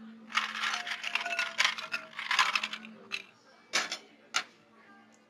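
Ice cubes rattling and clattering into a glass for about three seconds, followed by three sharp clinks of glassware.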